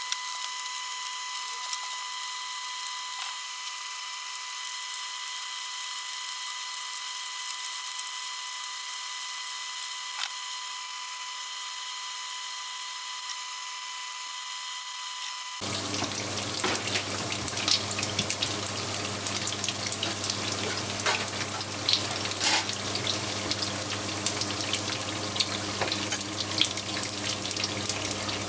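A steady high hum with hiss. About halfway through it cuts to deep-frying oil sizzling and crackling hard, with frequent sharp pops, as frozen gyoza fry.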